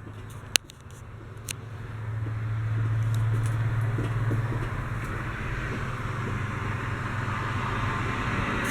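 A motor vehicle's engine running with a steady low hum, swelling to its loudest about three seconds in and then easing off slowly; a couple of light clicks in the first two seconds.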